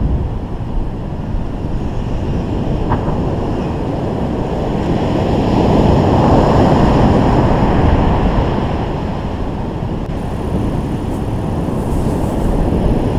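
Wind buffeting the microphone over breaking ocean surf, a steady rushing noise that swells to its loudest about halfway through and then eases.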